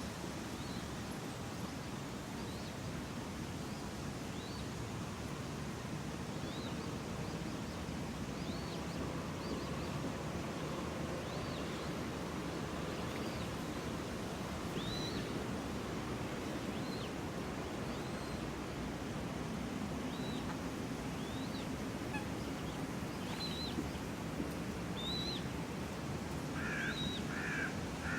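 City park ambience: a steady low background rumble with small birds chirping every second or two, and a crow starting to caw near the end.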